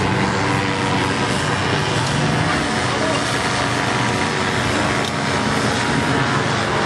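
Busy street crowd: many people talking at once over running vehicle engines, a steady, unbroken din.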